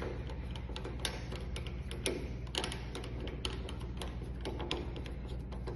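Irregular small metallic clicks and taps of door lock hardware being handled and fitted, over a steady low hum.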